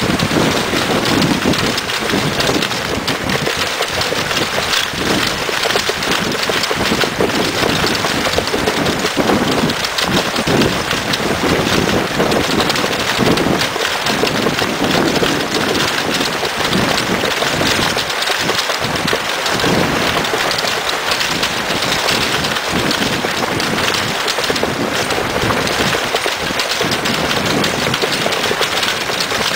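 Continuous crunching and rattling of a wheeled dog cart rolling over a leaf-strewn gravel trail, with running footsteps through dry leaves and wind buffeting the microphone.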